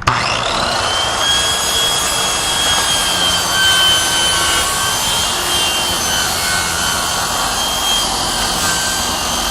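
7¼-inch circular saw running at full depth and cutting through a vinyl skirting panel with foam backing, a steady saw noise with a thin whine on top; it is cutting out the opening for a vent.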